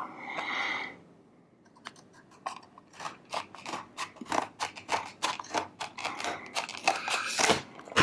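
Scissors cutting open a hard plastic blister pack: a run of sharp crunching snips and clicks, several a second, starting about two seconds in.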